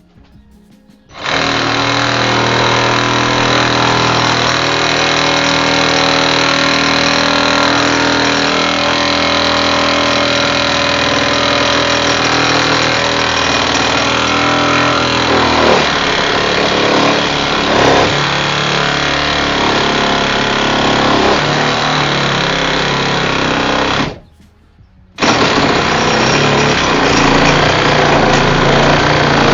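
Milwaukee M12 Hackzall (2420-20), a 12-volt cordless one-handed reciprocating saw with a wood blade, cutting through a 2x4. The saw starts about a second in and runs steadily. Its tone changes about halfway through, it stops for about a second near the end, then starts again.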